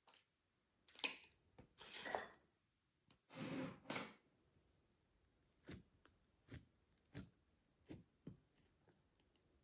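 Slime being handled, with three longer squishy, crackly squelches in the first four seconds, then a run of six short, sharp pops.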